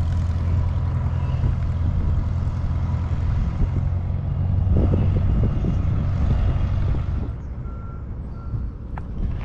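Small piston airplane's engine running steadily as the plane taxis away, its spark plugs freshly replaced after it ran rough on the mag check; the low hum fades about seven seconds in. A few short high electronic beeps sound near the end.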